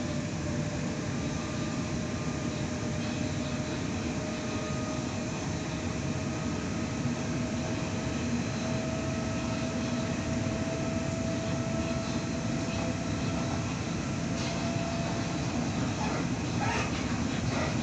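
Interior running noise of a Sydney Trains Waratah Series 2 electric train carriage in motion: a steady rumble of wheels on rail with a faint thin whine that rises slightly in pitch, then fades. A few brief clicks or squeaks come near the end.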